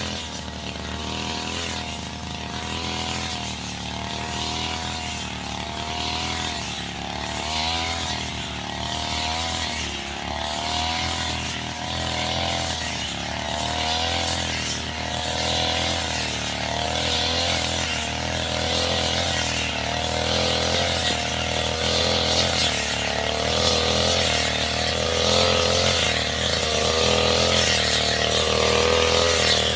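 Backpack brush cutter with a round metal blade running while cutting grass, its engine pitch wavering up and down every second or two. It grows gradually louder.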